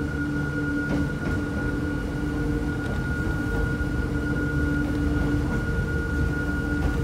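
Hakone Tozan Railway electric train running uphill, heard from inside the car: a steady low rumble with a steady high whine over it and a few faint clicks about a second in.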